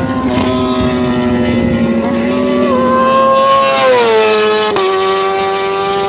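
Sport motorcycle engine at high revs running along the circuit's straight, its pitch dropping as the bike passes by about four seconds in, then holding lower as it goes away.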